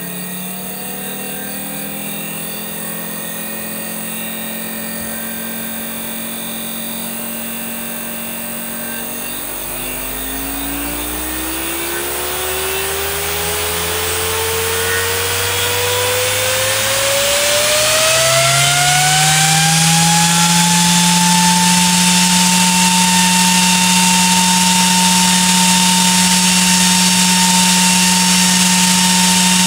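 Nidec Servo G1238V50BGYP-76 high-power 120 mm brushless DC fan under PWM control, spinning up from low speed to full speed. Its blade whine and air rush climb steadily in pitch and loudness for about ten seconds from roughly a third of the way in, then hold steady and loud at top speed.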